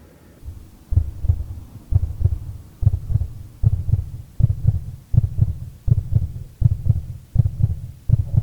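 Muffled deep bass thumping in a steady paired rhythm, about two to three beats a second, starting about a second in: a bass-heavy beat playing in the car.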